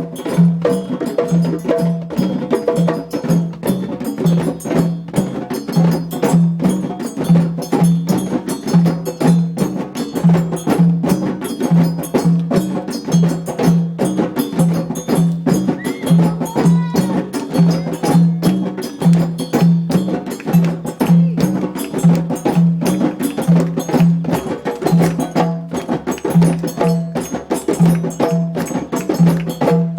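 Djembe drumming in a steady groove: a low bass stroke repeats a little more than once a second under a dense run of quick, sharp slaps and tones.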